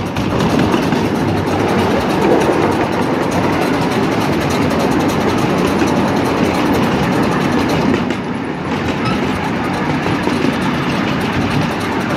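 Miniature park train running along its narrow-gauge track, heard from a passenger car: a steady rumble and clatter of wheels on the rails together with the small locomotive's engine, dipping slightly about eight seconds in.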